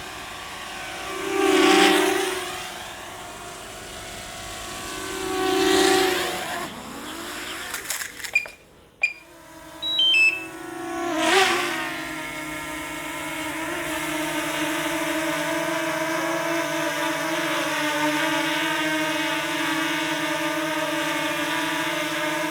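DJI Mini 2S quadcopter's propellers whining: two quick flybys with the pitch rising and falling as it passes, then a short break near the middle with a few sharp clicks and brief high beeps, another pass, and a steady hover for the rest.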